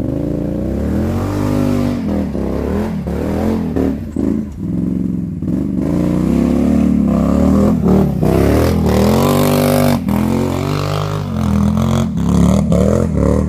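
Quad bike (ATV) engine revving hard up and down over and over as it labours up a steep, rutted mud climb, with scattered knocks and clatter from the machine.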